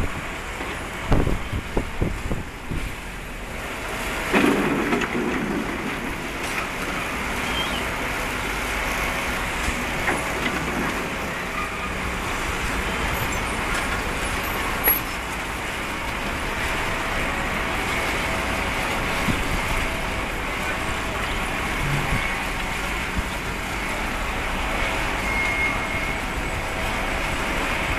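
Terex TV 1300-1 tandem road roller running as it rolls over crushed stone, a steady engine noise, with a few knocks in the first five seconds.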